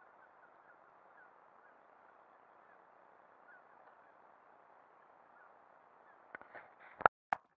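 Faint steady wash of water around a sit-on-top kayak with scattered faint short chirps, then a few sharp knocks near the end, the two loudest close together.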